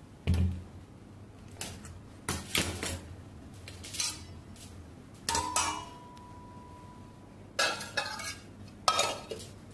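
Stainless steel pots, spoons and lids clinking and clattering as the pots are covered, with about seven separate knocks. About halfway through, a steel lid rings on with a steady tone for a couple of seconds.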